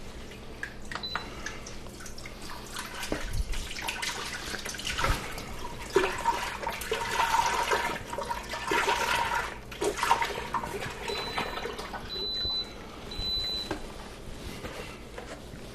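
Chicken broth being poured into an Instant Pot's stainless inner pot, an uneven splashing pour that is fullest in the middle and thins out toward the end.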